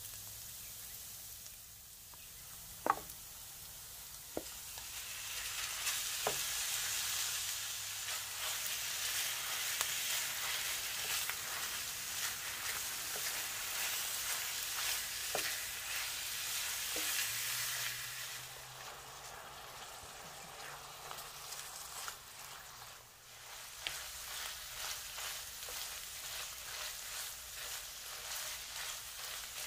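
Minced beef and chopped onions sizzling as they fry in a pan while a spatula stirs and breaks up the meat. A few sharp taps come in the first few seconds, then the sizzle grows loud, drops back for a few seconds past the middle, and picks up again.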